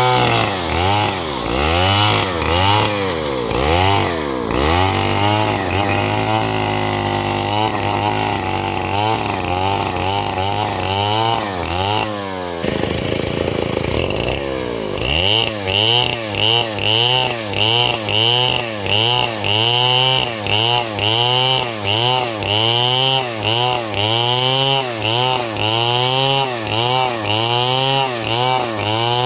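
Stihl chainsaw engine running, its pitch rising and falling about once a second. About halfway through it settles briefly to a steadier, lower note, then the rising and falling resumes.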